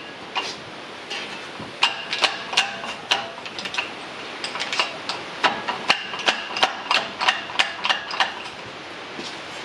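Metal hand tools knocking and clinking against metal: a run of irregular, sharp taps, a few a second, each with a short metallic ring.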